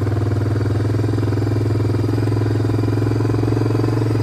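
Vehicle engine running at a steady speed while driving over grass: an even drone with a fast, regular pulse.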